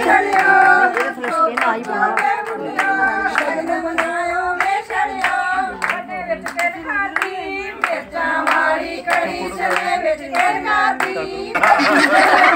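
Group of women singing a traditional wedding-ritual song together, kept in time by steady rhythmic hand claps; near the end the voices grow louder and busier.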